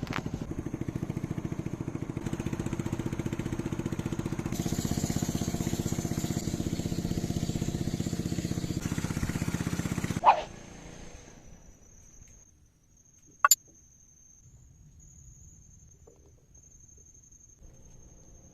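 Motorcycle engine running with an even, fast pulsing beat, then cut off with a short loud blip about ten seconds in. After it, faint background with a thin high steady whine and one sharp click.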